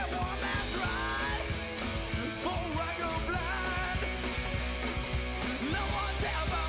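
Rock song with a singer and band playing as a soundtrack.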